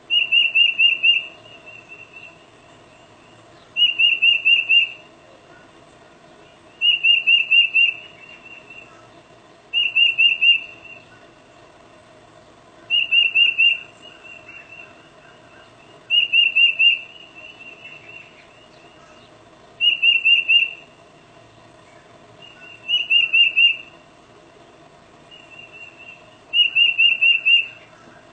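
Tufted titmouse singing its whistled peter-peter-peter song: a burst of four or five quick repeated notes about every three seconds, nine times, with softer notes between the bursts.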